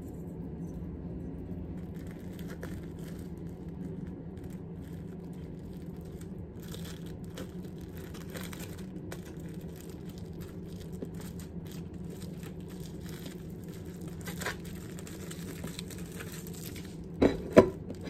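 Plastic cling film crinkling and rustling as it is rolled tightly around a raw chicken breast, over a steady low hum. Near the end, two sharp clunks as a ceramic plate is set down on the stainless-steel counter.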